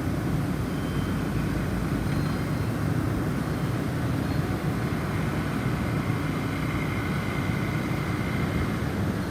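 Snowstorm wind blowing in a steady, deep rumble, with a few faint high wind-chime tones ringing through it.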